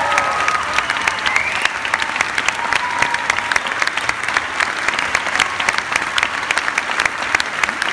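Large theatre audience applauding: dense, steady clapping of many hands.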